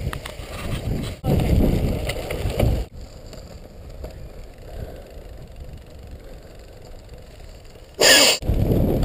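Bicycle tyres rolling over a gravel and dirt road, a rough low rumble and rattle heard through a bike-mounted camera. The level jumps abruptly several times: loud for a couple of seconds, quieter for about five, then a short harsh burst of noise near the end before the loud rumble returns.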